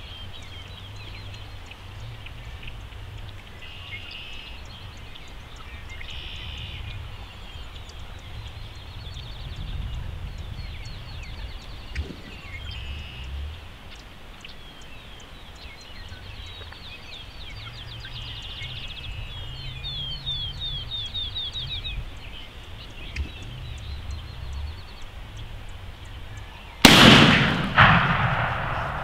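Songbirds chirping and wild turkey toms drumming low, then a single loud shotgun blast near the end, the shot that drops a longbeard gobbler, followed under a second later by a second, quieter sharp crack.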